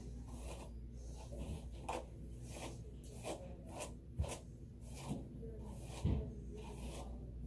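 Hairbrush bristles rasping through long, dampened hair in repeated quick strokes, with two dull thumps about four and six seconds in over a low steady hum.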